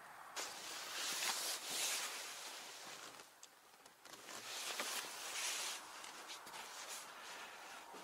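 Rustling and scraping of hands working a car window's rubber seal and trim, in two spells of about a second or two each, with a few light clicks.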